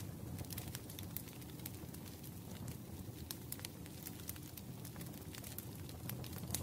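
Wood fire crackling: scattered sharp pops and snaps at irregular intervals over a low, steady rumble.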